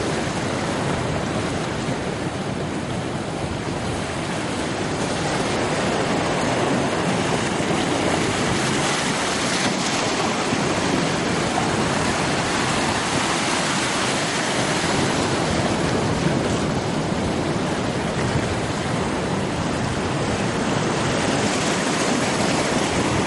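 Ocean surf washing and breaking on rocks: a steady rushing noise that swells and eases slightly in level.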